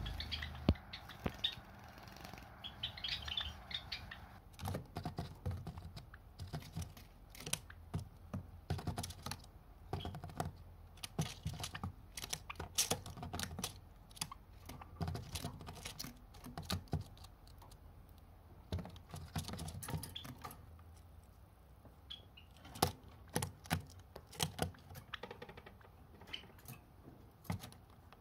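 Java sparrows in a wire cage making rapid, irregular clicks and taps in clusters, like beaks and feet knocking on the cage. A few short high chirps come in the first few seconds.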